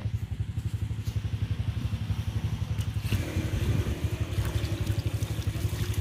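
An engine idling steadily, a fast, even low throb.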